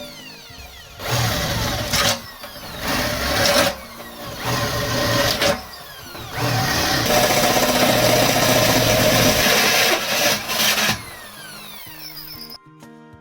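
Power tool worked on the steel pail can in repeated short bursts, then held on for about four seconds before stopping. Music comes in near the end.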